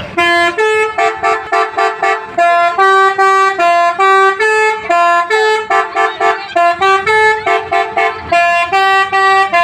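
A musical "telolet" multi-tone horn playing a quick tune of short notes, two to three a second, stepping between a few pitches with brief gaps between them.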